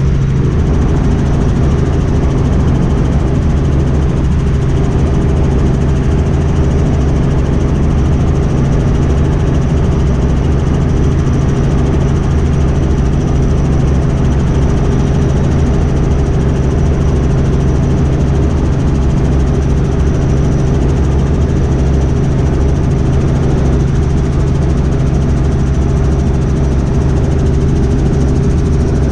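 Robinson R44 helicopter in cruise flight, heard from inside the cabin: the steady, even drone of its piston engine and main rotor.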